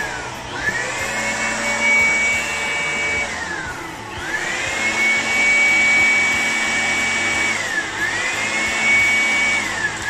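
Handheld electric blower blowing air, its motor whine winding up quickly, holding steady, then winding down, several times over. It eases off about three seconds in, comes back up near four seconds, dips briefly near eight seconds and winds down at the end.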